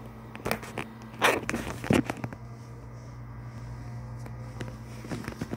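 Handling noise of a phone held up against a cat and its fleece bed: a few short rustles, the loudest about a second and two seconds in, over a steady low hum.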